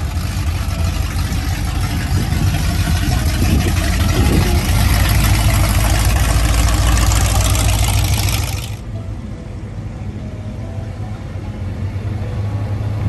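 Engine and exhaust of a gold mid-1960s Chevrolet coupe driving past, a loud rumble that swells as it passes, with a rev about four seconds in. It cuts off abruptly after about nine seconds, leaving the steady, quieter low engine rumble of a late-1960s Chevrolet C10 pickup rolling up.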